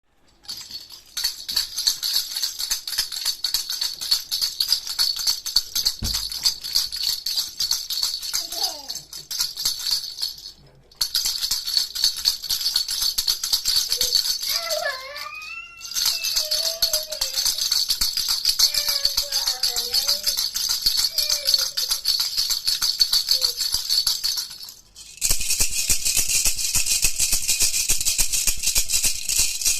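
Baby rattle shaken fast and continuously, a dense, high-pitched rattle of loose beads, in long runs broken by short pauses about ten, sixteen and twenty-five seconds in; the last run is fuller. A faint voice-like sliding sound is heard now and then through the middle.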